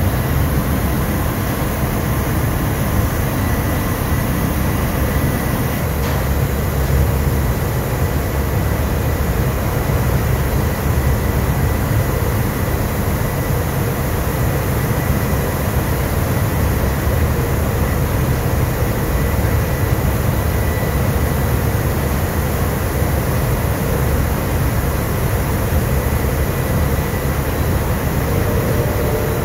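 Steady machinery drone of a ship's engine room, engines running continuously at sea, with a faint steady high tone over it.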